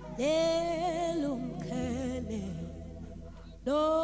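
A woman singing a slow gospel worship song into a microphone, long held notes with vibrato; a new phrase starts loudly near the end. Under the voice runs a soft, steady low accompaniment that shifts about two seconds in.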